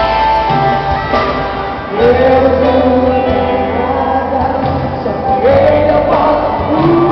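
Christian gospel song performed live by a band, a vocalist holding long notes over the instruments, with the singing coming in louder about two seconds in.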